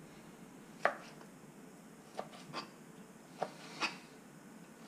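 Knife chopping raw fish fillets into small cubes on a plastic cutting board: about five faint, unevenly spaced knocks of the blade striking the board.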